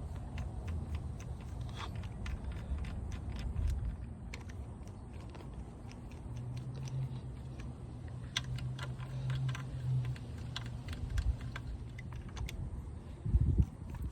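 Scattered light clicks and taps of metal tools and engine parts being handled during crankcase disassembly, over a low rumble, with one heavier thump near the end.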